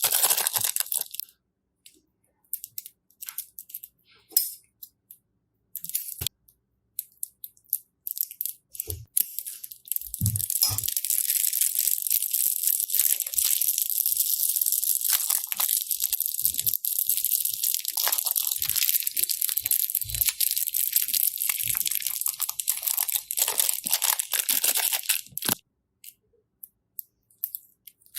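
Slime being pressed and worked by hand, making crunchy crackling. Scattered small clicks and pops come first, then dense continuous crackling from about ten seconds in that stops a few seconds before the end.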